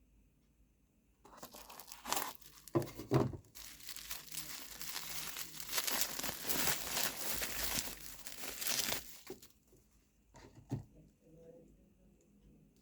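Packaging being torn open and crumpled by hand, a dense crinkling and tearing that starts about a second in and stops near the ten-second mark. A few light knocks come in the first seconds and one more after it stops.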